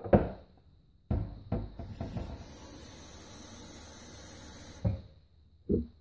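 Kitchen tap running steadily for about three and a half seconds, filling a ceramic mug with water. A sharp knock comes at the very start, and two short clunks of the mug near the end.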